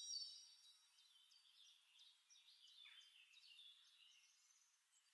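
Near silence, with a few faint, high, chirp-like traces scattered through the first few seconds.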